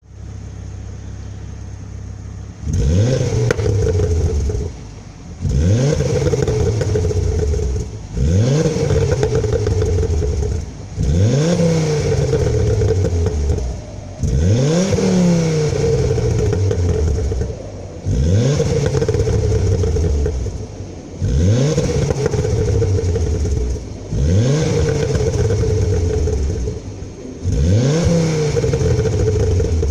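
Ford Focus ST 225's turbocharged 2.5-litre five-cylinder engine, with its exhaust resonator deleted, idling briefly and then free-revved about ten times. Each rev rises quickly in pitch and falls back, about every three seconds.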